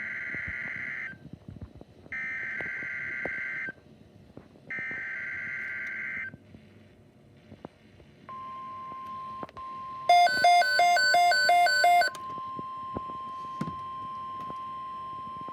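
NOAA Weather Radio EAS alert: three buzzy digital SAME header bursts about a second apart, then the steady 1050 Hz warning alarm tone. About two seconds into the tone, a loud, rapid electronic beeping sounds for about two seconds.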